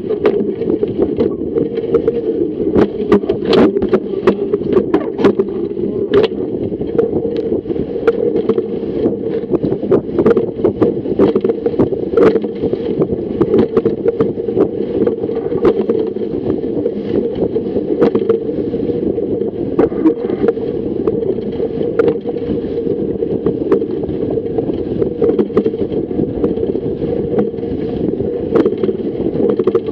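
Water rushing past a Fireball racing dinghy's hull as it sails fast upwind through choppy waves, with frequent sharp knocks and splashes of waves and spray against the boat and wind on the microphone.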